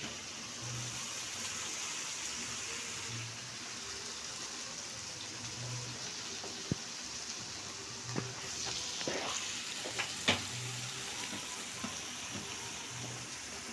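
Spiced chicken frying in a pan with a steady sizzle. A few sharp clicks come in the second half, the loudest about ten seconds in, as it is stirred.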